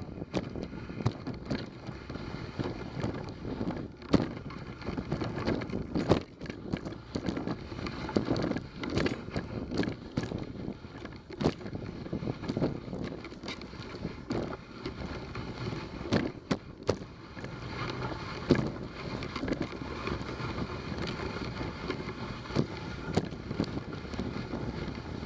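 Dog sled gliding over a snow trail: a steady scraping rush of the runners on snow, broken by frequent irregular knocks and rattles from the sled as it rides over the bumps.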